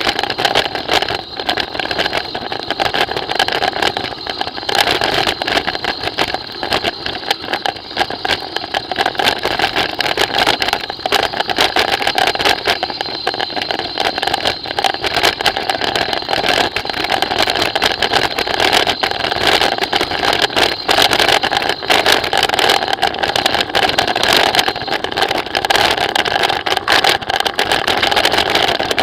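Mountain bike rolling down a rough concrete and gravel road, heard through a handlebar-mounted camera that picks up the frame's vibration as a loud, steady buzzing rattle with a dense clatter of small knocks from the bumps.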